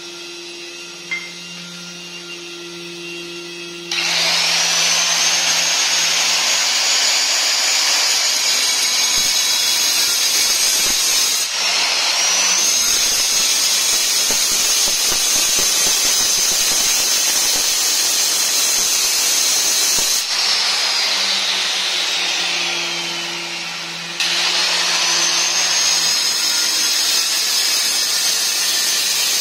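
Handheld electric marble cutter cutting a black granite strip. The motor starts with a rising whine about four seconds in and runs under load. It is switched off about two-thirds through and winds down with a falling whine, then starts again and cuts on.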